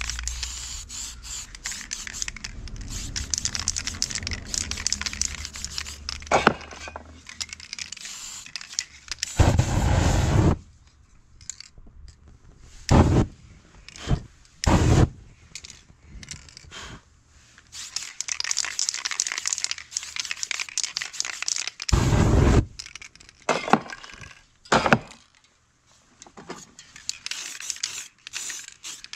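Aerosol spray-paint cans hissing in separate short bursts, with busy scraping, crackling and tearing of paper and stencils being worked over the board in between.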